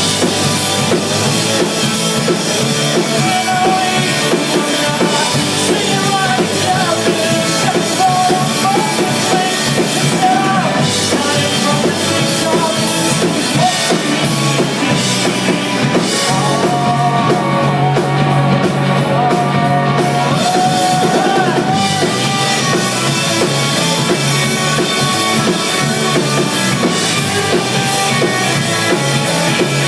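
Rock music played by a band with a drum kit, with a melody line that bends in pitch over it.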